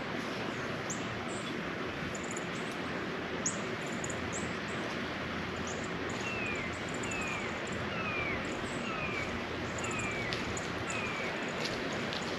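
Birds chirping outdoors over a steady background hiss. About halfway in, a series of about seven short falling chirps comes a little under one a second, with fainter high chirps scattered throughout.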